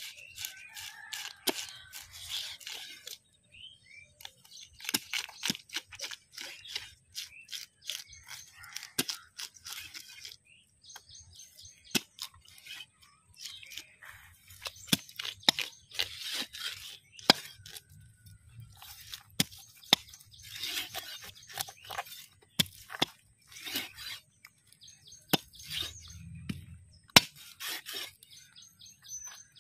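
Heavy curved knife chopping and scraping mrigal and catla carp on a wooden chopping block. Single sharp chops alternate with quick runs of rapid scraping strokes.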